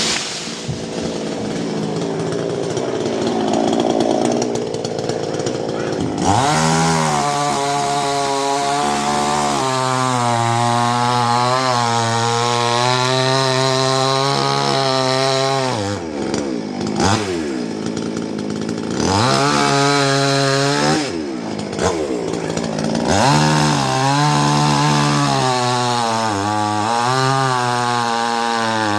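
Chainsaw running hard. For the first few seconds it sounds rougher, then it settles into a steady high engine note, and in the second half its pitch dips and comes back up several times as it is throttled or loaded.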